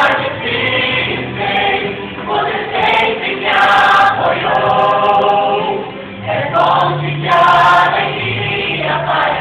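Music: a gospel-style song with choir singing in phrases over sustained bass notes.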